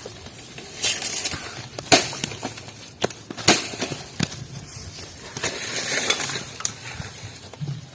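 Hands wrapping and pressing the covering around a whole chicken: irregular crunching and crackling, with about half a dozen sharp snaps.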